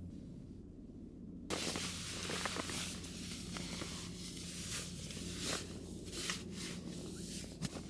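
Rustling and scuffing noises start suddenly about a second and a half in, with scattered clicks and crunches, over a low steady hum.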